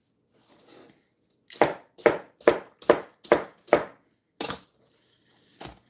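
Knife chopping on a cutting board: a quick run of six strokes, a bit over two a second, then two more single chops spaced apart.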